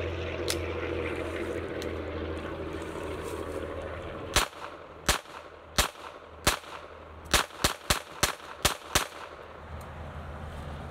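Ten shots from a Ruger Mark III 22/45 .22 LR pistol fired one-handed, starting about four seconds in: four evenly paced shots, then six in quicker succession. A steady low rumble runs underneath before the shooting.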